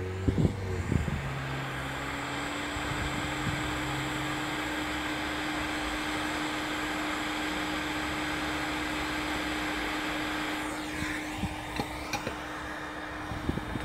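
Hot air rework station blowing steadily on a laptop motherboard to desolder a small component, an even rush of air over the hum of its blower fan. About ten seconds in the air hiss drops away, leaving the fan hum, with a few light ticks near the end.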